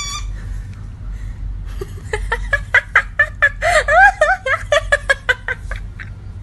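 A person laughing in quick, repeated bursts, starting about two seconds in and lasting a few seconds.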